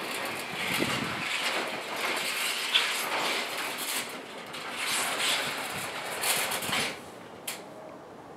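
Steel roll-up storage-unit door being pushed open, its slats rattling as the door rolls up, stopping about seven seconds in, followed by a single sharp click.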